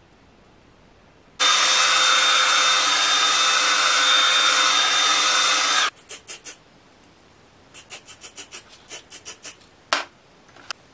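Aerosol can of Got2be Freeze hairspray giving one long hissing spray of about four and a half seconds, with a thin steady whistle in it, to glue the wig's lace at the hairline. It is followed by a run of short, quick bursts and one sharper burst near the end.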